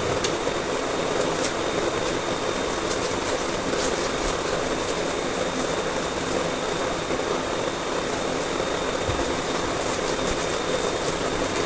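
Steady machine-like whirring noise with a faint constant high whine and a few light ticks.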